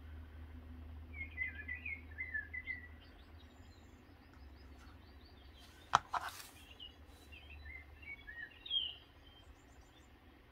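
A small bird chirping in the background, several quick high chirps early on and again near the end, over a low steady hum. A single sharp knock about six seconds in is the loudest sound.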